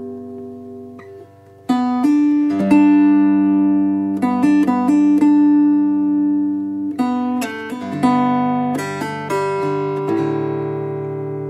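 Mountain dulcimer playing a plucked folk melody over steady drone strings, with a brief lull about a second and a half in before the next phrase.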